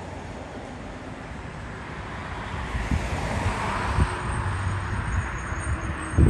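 School bus engine running and tyres on the road as the bus drives closer, the sound growing louder about halfway through. A short low thump near the end.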